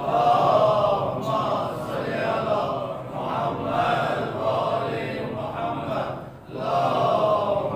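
A man's voice chanting a religious recitation in melodic, drawn-out phrases of a second or so each, breaking briefly about six seconds in.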